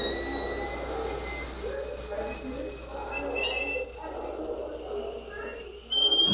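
Stovetop kettle whistling at the boil: one shrill, steady whistle that creeps slowly up in pitch, then snaps abruptly to a lower note near the end.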